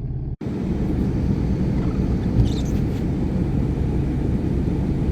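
Steady low rumble of a truck idling, heard from inside the cab, with one short bump about two and a half seconds in.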